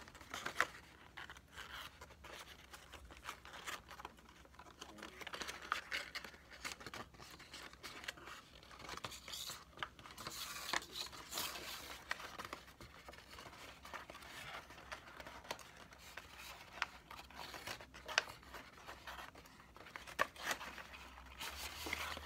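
A sheet of white paper crinkling and rustling as hands fold and press it along its pre-creased triangular pleats, with many small, irregular crisp crackles.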